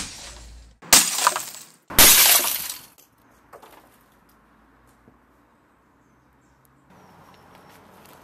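A heavy rock smashing into a CRT monitor: three crashes about a second apart with the glass screen shattering, the last the loudest and longest as the glass breaks up.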